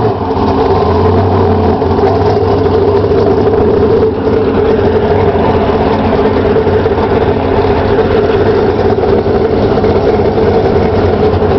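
Car engine running steadily, loud and close, a low even drone with no revving.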